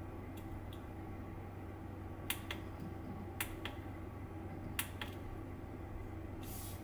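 A USB switch's push button pressed three times, each press a pair of sharp clicks about a quarter second apart (press and release), over a low steady hum. A short rustle comes near the end.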